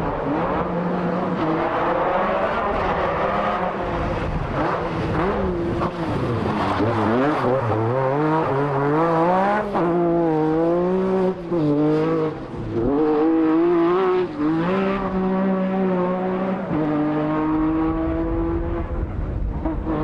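MG Metro 6R4 rally car's naturally aspirated 3-litre V6 at high revs, its note climbing and falling again and again through gear changes, with a few brief lifts off the throttle, then holding a steady pitch near the end.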